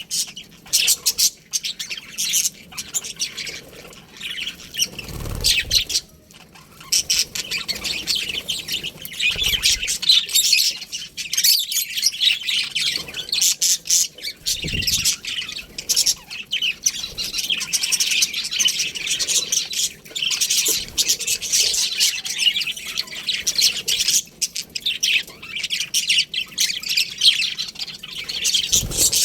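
A colony of budgerigars chattering and chirping all at once, a dense, unbroken stream of rapid high chirps and squawks, with a few faint low bumps.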